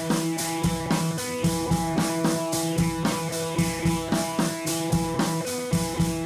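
Background music with a steady, quick beat over held notes.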